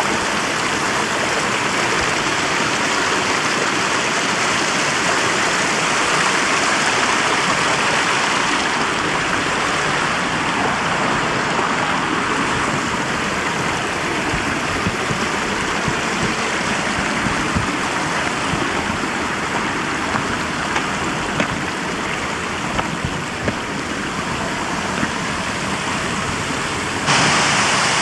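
Rushing mountain stream: a steady, even noise of fast-flowing water, changing abruptly near the end.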